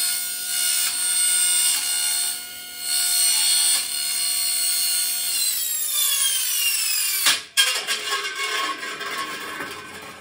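Table saw with a carbide-tipped blade cutting into a stainless steel vacuum flask as the flask is turned against it, giving a steady high metallic whine. About five seconds in the saw is switched off and the whine falls in pitch as the blade spins down. About seven seconds in there is a sharp bang as the coasting blade catches the flask, followed by rattling until the blade stops.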